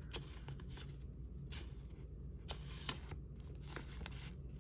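Sheets of paper ephemera rustling and sliding as they are handled, in short, soft, intermittent swishes.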